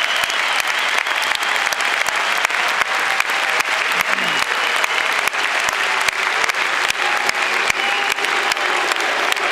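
Large arena crowd applauding steadily, a dense wash of clapping with a few voices mixed in.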